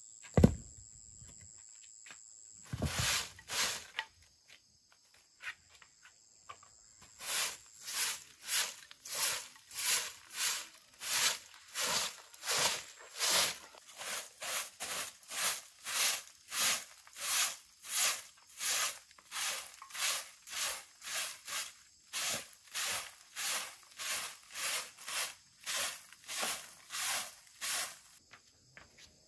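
A short grass broom sweeping wood shavings across a concrete floor, in even strokes of about two a second. A sharp knock about half a second in.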